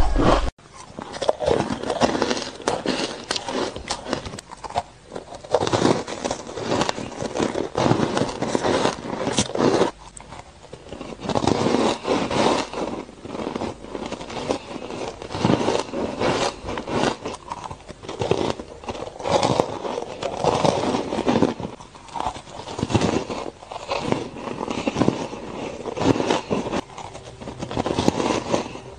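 Close-miked crunching and chewing of frozen matcha shaved ice, in crackly bites that come again and again about once a second.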